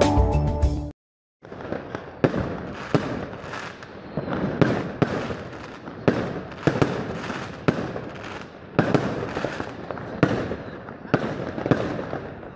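Intro music ends in the first second, then after a brief silence aerial fireworks burst overhead: a run of sharp bangs, about one to two a second, with crackling in between.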